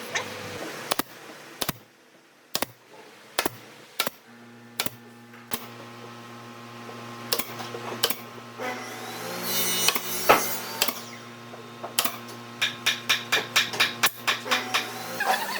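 Sharp knocks of a hammer or mallet tapping on wood: single blows spaced out at first, then a quick run of about five taps a second near the end, over a low steady hum.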